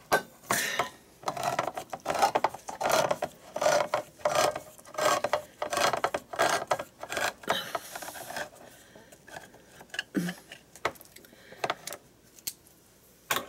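Metal clicking and scraping at a tin can of pineapple chunks, about two quick strokes a second for the first eight seconds, then sparser single clicks.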